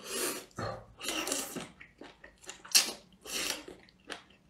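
A person slurping a long strand of spicy duck intestine into the mouth in a run of short sucking hisses, about seven in four and a half seconds.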